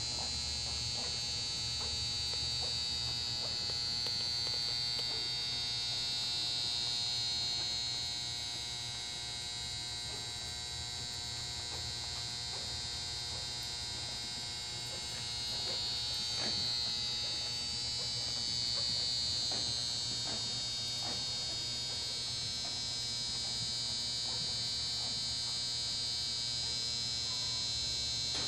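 Steady electrical buzz and hum with a high hiss, unchanging throughout, with a few faint soft knocks now and then.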